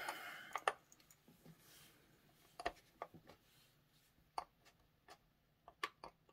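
Faint, scattered clicks of LEGO pieces being handled and pressed onto a LEGO baseplate: a handful of small separate clicks, two close together near the start, others spread through the rest.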